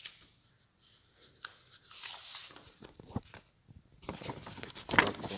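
Stiff paper of a large fold-out brochure rustling and crackling as it is handled and refolded, with scattered crisp clicks. It gets busier near the end, with one louder crackle.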